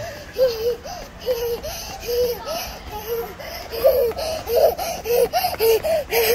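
A young girl laughing in short repeated bursts, about two a second.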